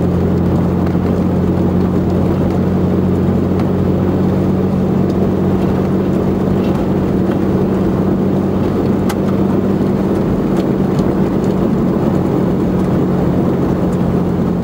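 Vehicle driving at a steady speed on a graded dirt road, heard from inside: a steady low engine drone under tyre and road noise, with a few faint ticks.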